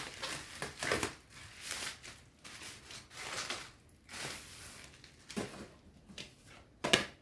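Rustling and crinkling of packaging as a book is unwrapped and handled, in irregular bursts, with a sharper knock or crackle near the end.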